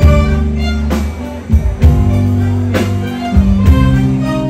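Live band playing a song's instrumental intro: held keyboard chords over a bass line, with drum hits about once a second.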